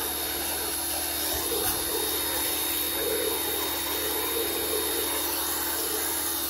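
Electric pressure washer running steadily: a constant motor hum and whine over the hiss of the water spray.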